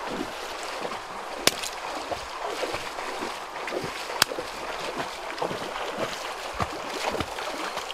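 Feet splashing through shallow river water as a person wades quickly, with two sharp clicks.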